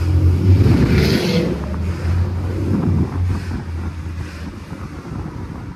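Car running and rolling with a steady low hum, wind buffeting the phone's microphone held outside the window, with a stronger gust about a second in.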